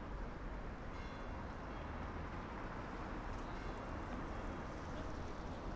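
Steady city street ambience: a continuous low traffic rumble and hiss with no distinct events.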